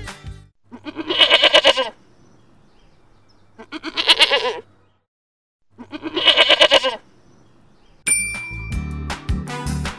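Goat bleating three times, each call about a second long with a quavering tremble. A chime and upbeat music begin near the end.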